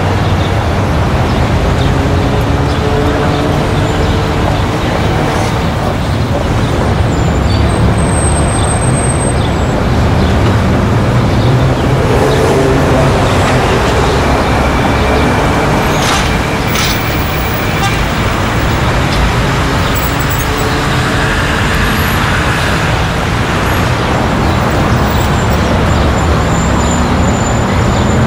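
Street traffic: a steady din of car and bus engines running and passing by, their pitches slowly rising and falling as vehicles come and go.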